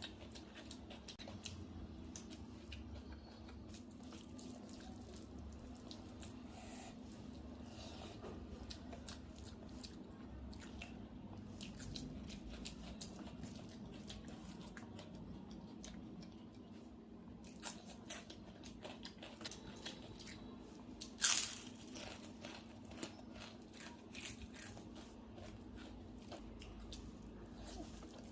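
Close-up eating sounds: chewing and crunching, with many small clicks and a steady low hum under them. Sharper crunches or knocks come in a cluster in the second half, the loudest about 21 seconds in.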